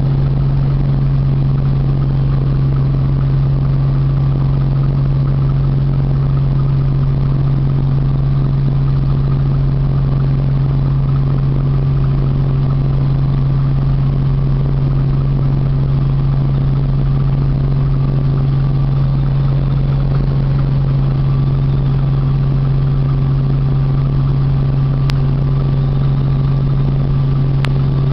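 Light helicopter's engine and rotor heard from inside the cabin: a loud, steady low drone as it lifts off and climbs.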